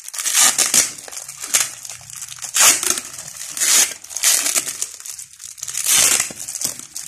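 Clear plastic packing wrap crinkling and tearing in repeated short bursts as it is pulled and cut off the steel-cable drum of a new winch.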